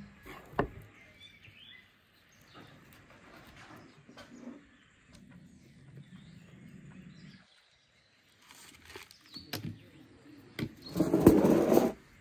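A run of short handling sounds, sharp clicks and soft rustles, with birds chirping faintly. Near the end comes a loud, second-long scraping rustle as a foil-covered metal bucket is pushed in among glowing embers.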